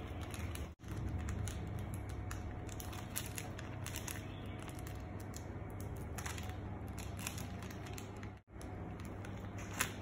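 Plastic cookie wrapper crinkling in a small child's hands, a scatter of irregular little crackles over a steady low hum. The sound cuts out for an instant twice.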